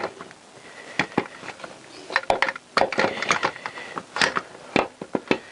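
Irregular metallic clicks and light knocks of gearbox selector forks being worked by hand into a Honda CBR1000F crankcase, with a quick run of clinks a little past the middle.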